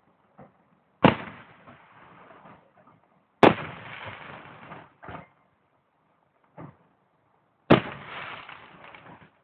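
Aerial firework shells bursting: three loud bangs a few seconds apart, each trailing off over a second or so, with a few fainter pops between.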